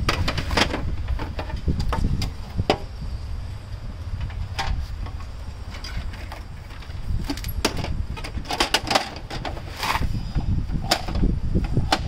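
Scattered plastic clicks, snaps and knocks from the casing of an HP LaserJet Pro MFP M125a laser printer being taken apart by hand, with a quick cluster of them near the end.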